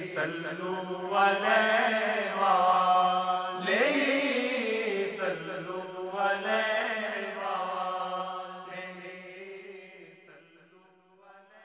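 Devotional salawat chanting, a voice singing long held notes that bend and waver in pitch, fading away over the last few seconds.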